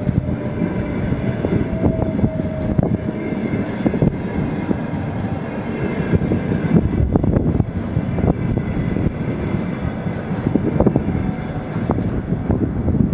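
Passenger coaches of a long-distance train rolling past close by: a steady rumble with wheels clicking on the track at irregular intervals.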